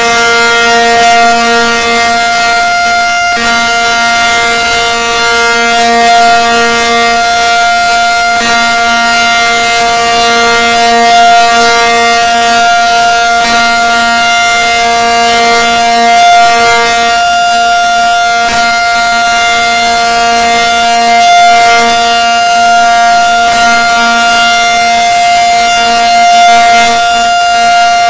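Outdoor tornado warning siren sounding loudly, holding one steady pitch with a second, lower tone swelling and fading.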